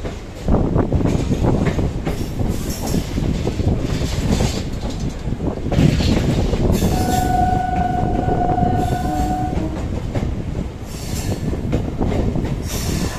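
Train running with a steady rumble and clatter of wheels on the track. About seven seconds in, a single steady horn blast sounds for about two and a half seconds.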